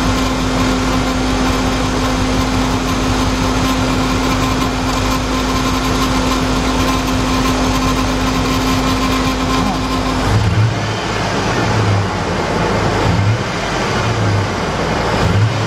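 A 2004 Lincoln Navigator's 5.4-litre V8 running at idle with a cylinder misfire, heard from under the hood. A steady hum drops out about ten seconds in, and the running turns to an uneven low pulsing.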